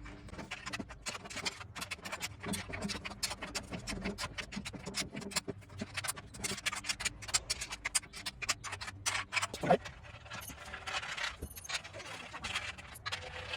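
Bolts being put in and tightened by hand on a table frame: a quick, irregular run of small metal clicks and scrapes from the tool and bolt heads.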